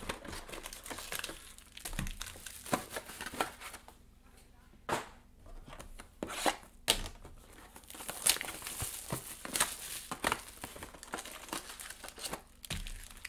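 Hobby box of trading-card packs being opened by hand, its wrapped packs pulled out and stacked, with crinkling pack wrappers, cardboard scrapes and small irregular taps. There is a quieter lull midway.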